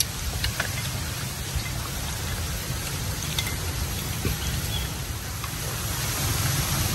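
Snails sizzling on a charcoal grill: a steady hiss with a few faint clicks and pops, over a low rumble.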